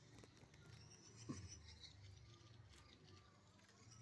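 Near silence, with faint scattered ticks and scratches.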